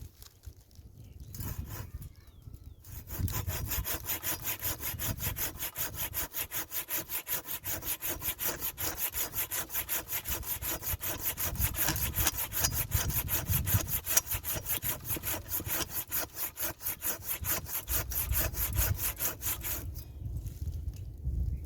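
Hand saw cutting wood in fast, even back-and-forth strokes. It starts about three seconds in and stops a couple of seconds before the end.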